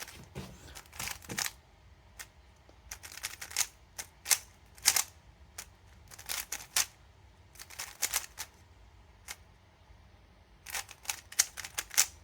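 A freshly lubricated MoYu Weilong Ferrocore speedcube being turned by hand: its plastic layers clack in short bursts of sharp clicks with pauses between the turns.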